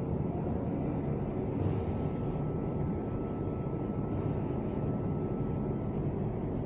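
Steady low rumble and hum of a railway station concourse, with a faint steady whine that fades out about five seconds in.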